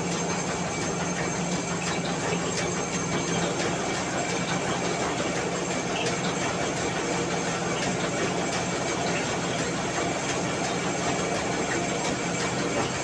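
Mini rice mill running under load as paddy is fed into its hopper and milled rice pours from the spout. It makes a loud, steady hum with a dense grainy rattle over it.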